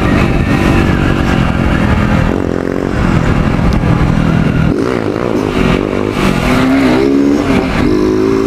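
Motorcycle engine running under way, its pitch rising and falling as the throttle changes.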